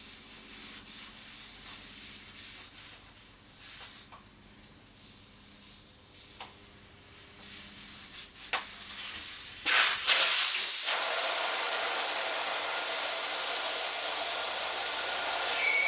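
Valve core being worked loose in a motorcycle wheel's valve stem with a core wrench, with light rubbing and a few small ticks. About ten seconds in, the core comes free and air rushes out of the tire in a loud, steady hiss as it deflates, with a short rising squeal near the end.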